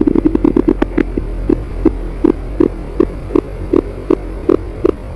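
Stomach growling: a low gurgle of quick pops that slows into a string of single low pops, about three a second. A hungry stomach.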